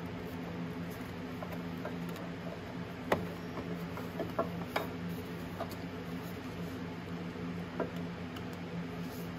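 Scattered small clicks and taps of hands handling plastic wiring connectors and parts, one sharper click about three seconds in, over a steady low hum.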